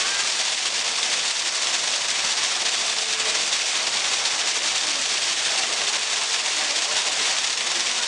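A thin stream of water falling from a height and splashing into a pool: a steady splashing hiss.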